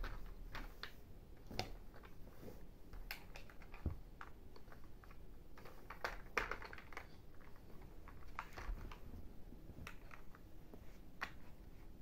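Irregular light clicks and taps of hard plastic: a toy screwdriver working at the screws of a plastic toy truck and its parts being handled.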